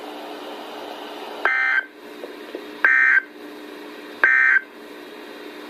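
NOAA Weather Radio SAME digital header: three short buzzy data bursts about 1.4 s apart over a low steady radio hum. This coded header sets off weather-alert receivers ahead of a warning.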